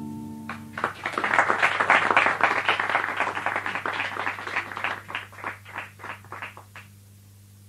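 The final acoustic guitar chord rings out, then an audience applauds. The clapping is dense at first, thins to a few scattered claps and stops near the end.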